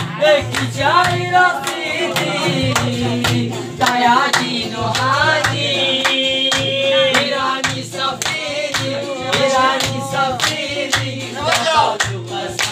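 Male voices singing a Khowar folk song over steady rhythmic hand-clapping, with a long wavering held note about six seconds in.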